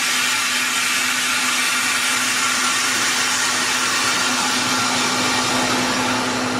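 Home freeze dryer's vacuum chamber being let back up to air pressure: a loud, steady rush of air with a steady hum under it, starting abruptly. When the noise ends, the chamber is depressurized and the door can be opened.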